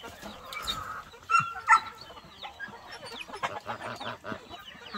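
A flock of chickens clucking and calling while they feed on live black soldier fly larvae, with two louder calls about a second and a half in.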